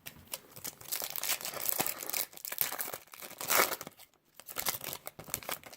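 Foil wrapper of a trading-card pack crinkling and tearing as it is ripped open by hand, a dense crackle in two spells with a short pause after about three and a half seconds.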